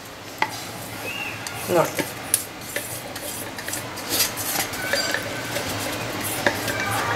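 Ground spice powder pouring out of a stainless-steel mixer-grinder jar into a steel bowl: a steady dry rasping, with many small metal clicks and clinks from the jar and bowl.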